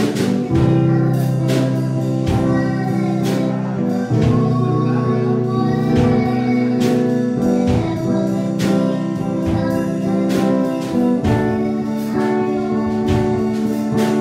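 Worship music: sustained chords over a steady beat, with no words.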